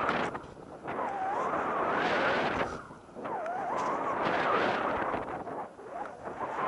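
Skis running through powder snow, a rushing hiss mixed with wind on the microphone, in surges with brief dips about half a second, three seconds and six seconds in. A faint wavering whistle rides on top.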